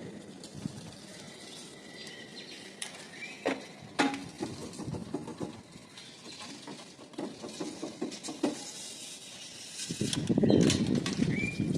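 Scattered light clicks and knocks of hand tools and metal parts while the power steering hose is worked off the pump, with a louder stretch of handling noise near the end.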